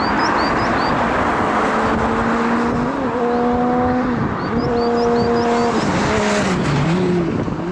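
Car driving up a winding mountain road, heard from a camera mounted outside on the body. Heavy wind rush covers everything, and under it the engine note holds steady, shifts in steps, then drops away near the end.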